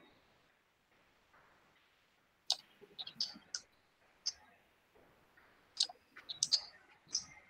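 A run of sharp, irregular clicks in small clusters, starting about two and a half seconds in, such as computer keys or mouse buttons make when picked up by an open microphone in an online meeting.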